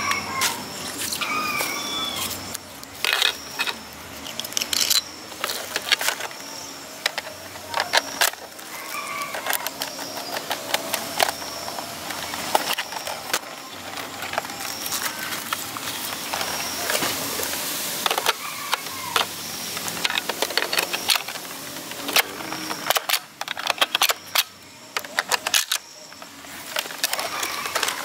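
Irregular sharp plastic clicks and clacks from toy foam-dart blasters being handled, with parts being worked and set down.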